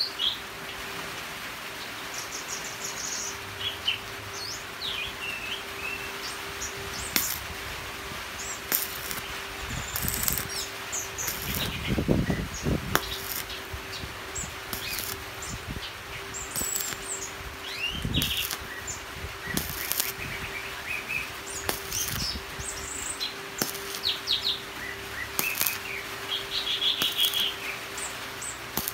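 Small birds chirping, with short crackling bursts from a stick-welding electrode arcing on thin round metal pipe.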